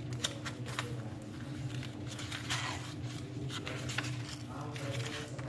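Paper pages of a colour vision test book being turned by hand: a string of crisp paper rustles and soft flaps, with a couple of longer rustles in the middle, over a steady low hum.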